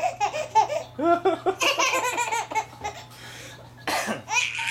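Baby laughing in quick repeated bursts, with a short pause about three seconds in before laughing again near the end.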